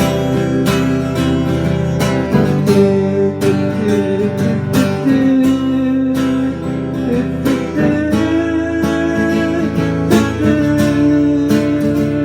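Music: an acoustic guitar strummed in a steady rhythm, its chords ringing.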